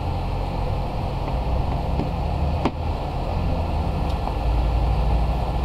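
Car engine idling steadily. About two and a half seconds in there is one sharp knock as a plastic lid is set down on a plastic tub.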